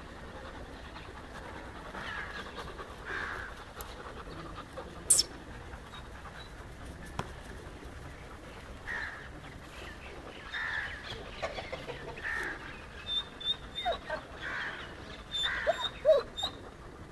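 Short animal calls come now and then, with small high chirps in the last few seconds and a single sharp click about five seconds in.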